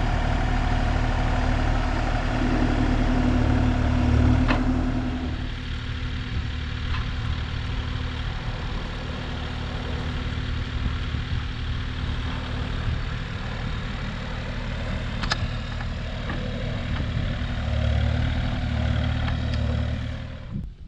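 Kubota KX040-4 mini excavator's diesel engine running while the machine carries and positions roof trusses on its forks. The engine is louder for the first five seconds and again near the end, with an occasional sharp click.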